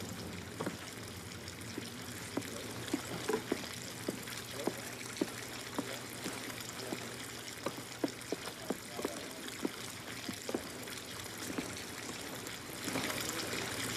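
Water trickling into a wooden sensory-deprivation tank: a steady hiss with irregular small drips, about two a second, swelling louder near the end.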